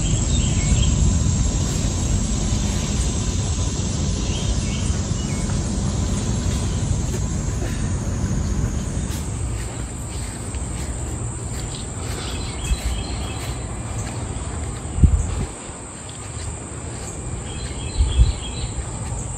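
Outdoor ambience on a phone microphone: a steady low rumble of noise with a steady high-pitched insect drone, a few faint chirps, and two short thumps near the end.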